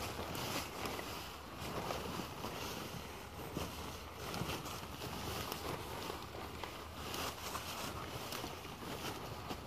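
Footsteps crunching and rustling in dry fallen leaves, irregular and repeated throughout, over a steady low hum.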